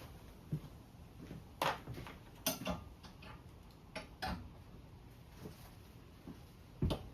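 Irregular light clicks, knocks and brief scrapes of small parts and tools being handled, with a handful of sharper knocks spread through.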